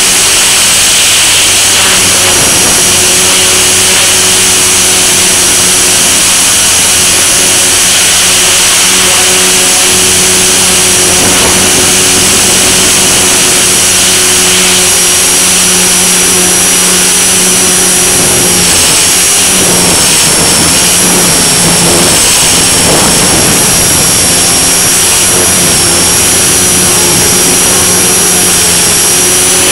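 Blade mCP X BL micro RC helicopter in flight, heard from on board: a loud, steady high-pitched electric motor whine over the buzz of the rotors. A little past the middle the whine dips slightly in pitch and wavers for a few seconds.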